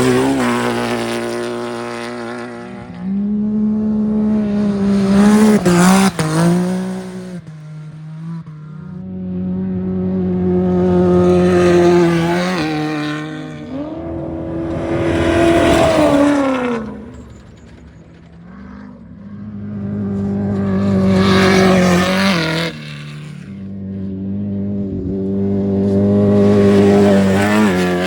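Off-road race vehicles' engines passing one after another at speed, about six loud swells that rise as each vehicle nears and fall away as it goes, with the engine pitch dropping as one goes by.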